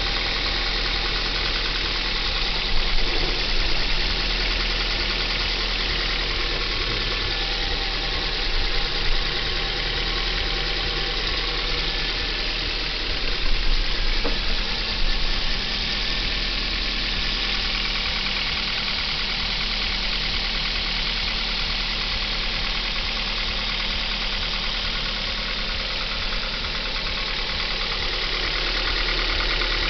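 Kia Ceed engine running steadily near idle, with the engine knock it is being recorded for, and a few brief louder moments.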